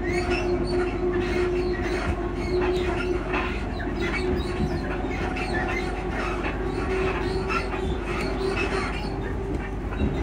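Class 334 electric multiple unit heard from inside the carriage while running: a steady rumble with a constant hum, and frequent small knocks, clicks and creaks from the suspension and body.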